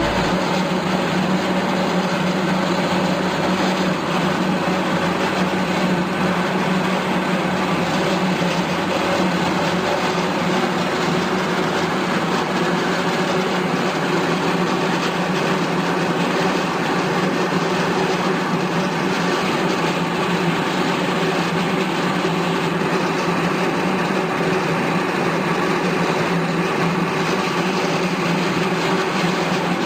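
Marvel Series 8 Mark 1 vertical bandsaw running steadily: electric motor hum and the blade running through its drive, with no change in speed.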